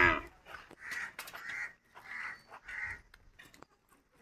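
A crow cawing four times in a quick, even series, after the tail of a louder pitched call right at the start.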